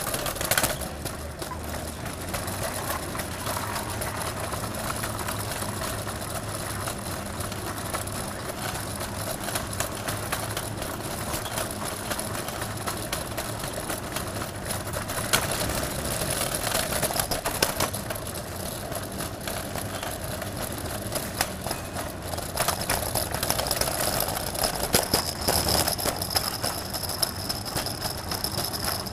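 City street ambience: steady traffic noise with vehicle engines running, and scattered short clicks and knocks.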